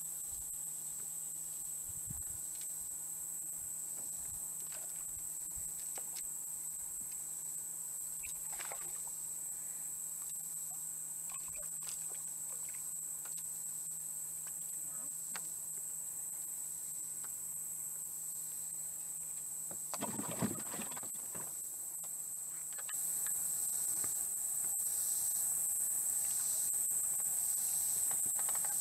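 Steady high-pitched drone of an insect chorus (crickets), with a short louder noise about twenty seconds in; the background gets somewhat louder a couple of seconds later.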